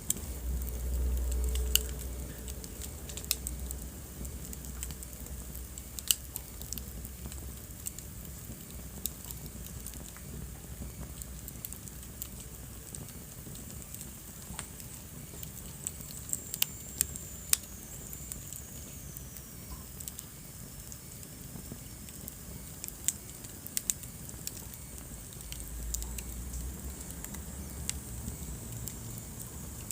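Wood fire burning in a fireplace: a steady hiss and low rumble with irregular sharp crackles and pops. A faint high whistle from the burning wood sinks in pitch about halfway through.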